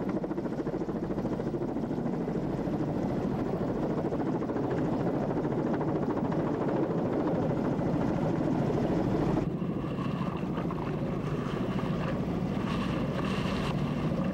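Helicopter hovering low over the sea, its rotor and engine running steadily. About nine and a half seconds in the sound shifts and higher steady tones come through.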